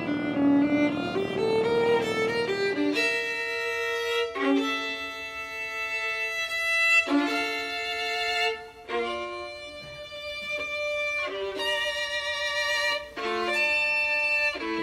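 Background music: a slow melody of held, pitched notes that change every second or so.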